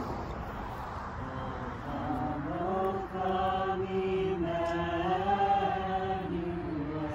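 Group of people singing a rewritten version of a popular Christmas carol together, in slow, long-held notes that step up and down in pitch; the singing grows fuller about two seconds in.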